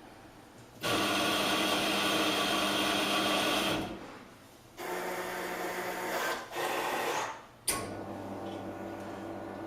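Carimali Multi automatic coffee machine working through a cappuccino cycle. Its motor whirs loudly for about three seconds, stops, then runs again in two shorter stages. A sharp click follows, then a steady lower hum.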